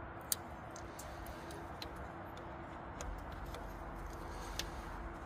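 Mazda 626 running with a steady low hum and sharp, irregular ticks or snaps about one a second: the mystery sparking noise that is being traced by checking the spark plugs.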